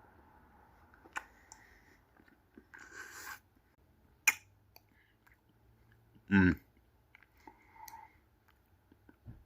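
A man chewing a mouthful of soft-cookie ice cream sandwich: moist mouth clicks and lip smacks, with one sharp click about four seconds in. About six seconds in comes a short, louder vocal sound that falls in pitch.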